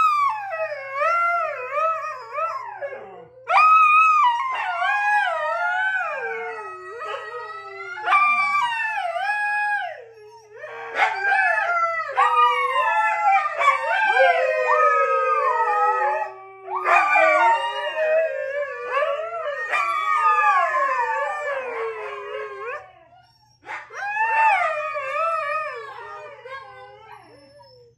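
Several Siberian huskies howling together, long wavering howls that slide up and down in pitch and overlap one another, with a few short breaks between rounds.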